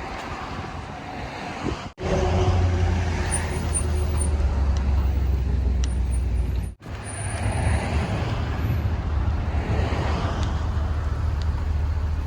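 Road traffic noise, a steady low rumble with passing vehicles, mixed with wind buffeting the microphone.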